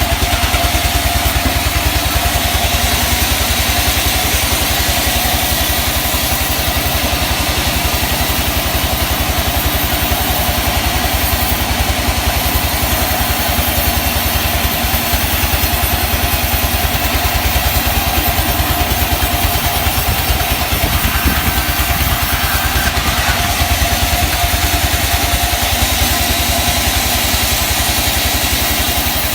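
Sawmill machinery running steadily, with an engine drone and a faint steady whine.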